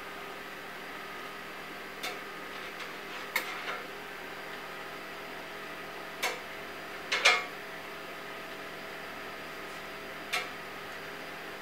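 Steel glassblowing pipe clinking against metal at the furnace as it is turned: about six short, sharp clinks spread out, the loudest a double clink about seven seconds in, over a steady workshop hum.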